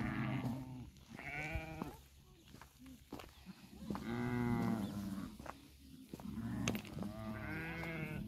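Sheep bleating: about four separate wavering bleats, the longest about halfway through, from different animals in the flock.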